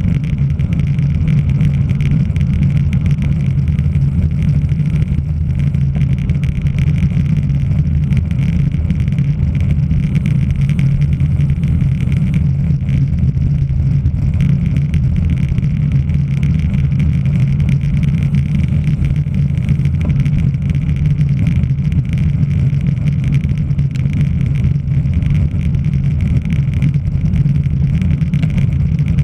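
Wind buffeting a microphone at cycling race speed: a steady, loud low rumble with no breaks.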